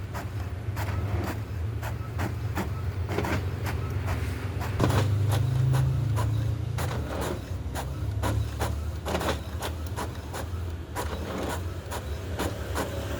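Epson WorkForce Pro WF-C5890 inkjet printer running a colour print job: a steady low motor hum with repeated clicks, about two or three a second, and a louder spell for a couple of seconds in the middle.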